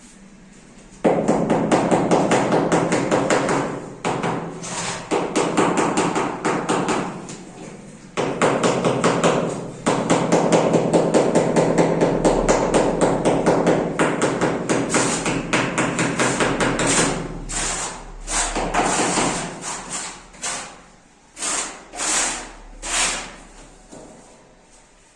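Rapid hammering, many blows a second, in bursts of a few seconds with short breaks, thinning to separate strikes near the end; typical of chipping at a ceiling.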